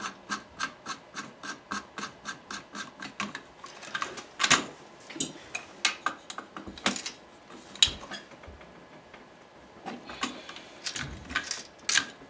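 Rapid, even metallic clicking, about five clicks a second, while a muzzle device is spun onto the threads of an AR-15 barrel, stopping after three or four seconds. Then scattered metal clinks and knocks of the barrel and tools being set down and handled.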